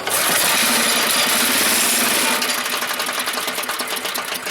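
The 1983 Mighty Mac chipper shredder's gasoline engine fires and runs briefly on a shot of fuel, the sign that it has spark. It starts sharply and runs steadily for about two seconds, then stutters into a rapid uneven chatter of separate firing pulses.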